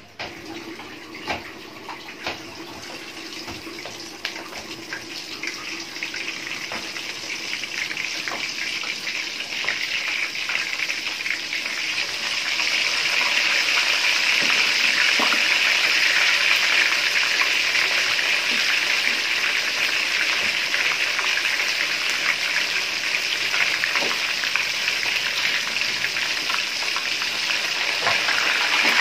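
Chicken pieces deep-frying in hot oil in a wok: scattered pops and crackles at first, building into a louder, steady sizzle about halfway through as more pieces go into the oil.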